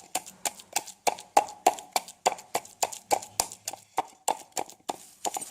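Rhythmic knocking, about three to four hard strikes a second, each with a short ringing note: a knife chopping steadily on a wooden cutting board.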